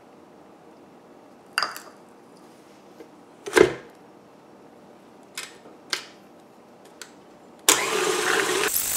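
Tilt-head stand mixer: a knock, then a loud clunk as the mixer head is lowered onto the bowl, a few sharp clicks, and near the end the motor switches on and runs steadily with a hum, beating butter and sugar.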